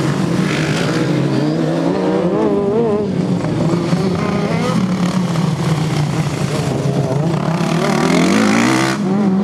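Engines of racing ride-on lawn mowers running hard on a dirt track, a steady drone whose pitch rises and falls as the mowers accelerate and pass.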